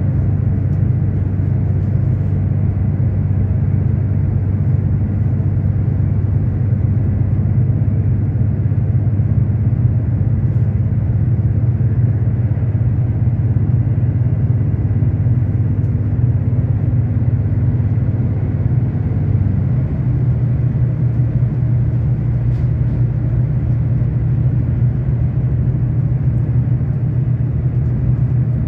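V/Line diesel train heard from inside the carriage while running at speed: a steady low engine hum over the rumble of the wheels on the track. About two-thirds of the way through, the engine note steps up slightly in pitch.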